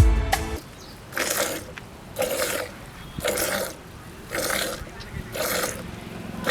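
Hand milking of a buffalo: milk jets hissing into a pail in short spurts, about one a second.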